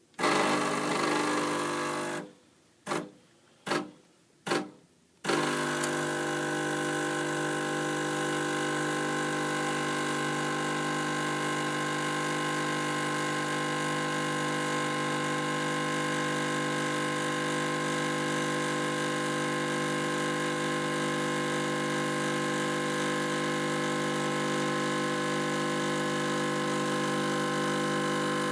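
Espresso machine's pump buzzing as it pushes water through the coffee to pour a shot. It runs briefly, then comes in three short bursts, then runs steadily from about five seconds in.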